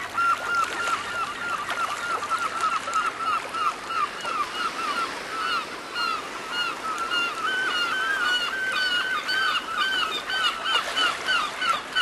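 A dense chorus of many animals honking at once: short rising-and-falling calls overlapping without a break.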